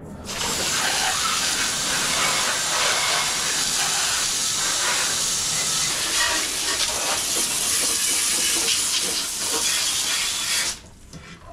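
Water spraying from a hand-held hose nozzle into a car's empty engine bay: a loud, steady hiss of spray striking sheet metal and wiring. It cuts off suddenly about a second before the end.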